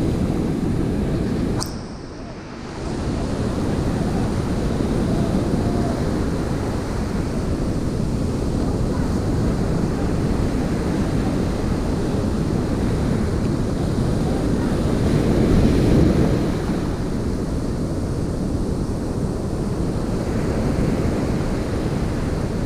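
Surf washing onto a sandy beach, mixed with wind buffeting the microphone. A sharp click comes about one and a half seconds in, the noise drops for about a second, and it swells louder about two-thirds of the way through.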